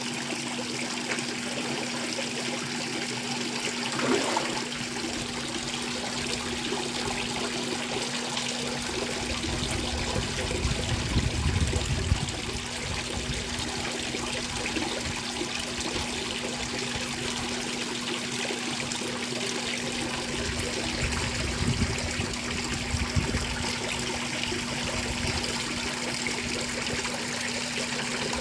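Light rain falling, with water trickling and dripping. A steady low hum runs underneath, and gusts of wind rumble on the microphone about ten seconds in and again near twenty-two seconds.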